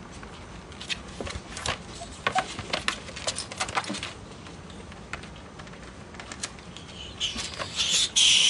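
Two ferrets play-wrestling: irregular clicks and scrabbling over the first few seconds, then a loud hiss from one of the ferrets, lasting about a second, near the end.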